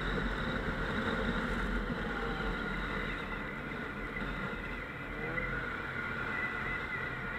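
Snowmobile engine running steadily under way.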